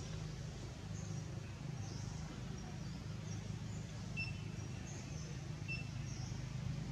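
Steady low engine hum with short, high bird chirps scattered throughout.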